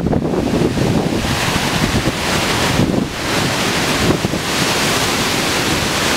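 Strong, gusting hurricane wind rushing through street trees and buffeting the microphone, in a loud, continuous rush that swells and eases every second or two.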